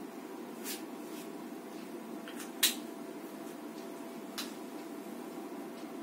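Marker on a whiteboard: a few short scratchy strokes and one sharp tap about two and a half seconds in, over a steady low background hum.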